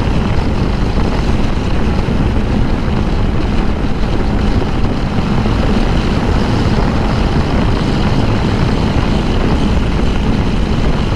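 KTM 390 Adventure's single-cylinder engine running steadily at highway cruising speed, about 110–117 km/h, under a constant rush of wind over the rider's camera microphone.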